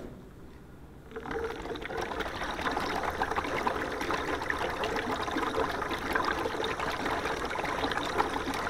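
Compressed CO2 from a gas tank bubbling vigorously up through a tall column of water, starting about a second in and then continuing steadily. The gas is dissolving into the water as carbonic acid, turning it acidic.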